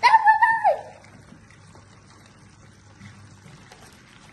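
A short, high-pitched cry at the very start, held level and then falling away, lasting under a second.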